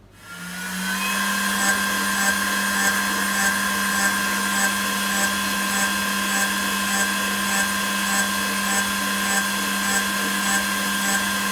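CNC jewelry milling machine's horizontal diamond-cut head spinning up in the first second, then running at steady speed with a high whine and a regular tick a little under twice a second.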